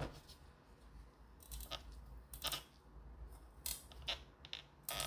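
A chef's knife cutting and prying into the hard stem of a kabocha squash, a series of short, irregular scraping cuts through the tough stem and rind.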